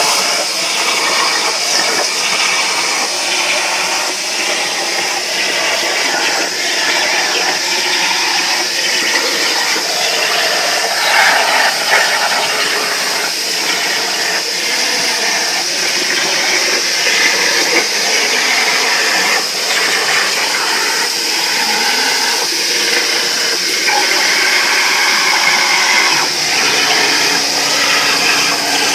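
CNC plasma cutter's torch cutting sheet metal: the plasma arc and its air jet give a loud, steady hiss.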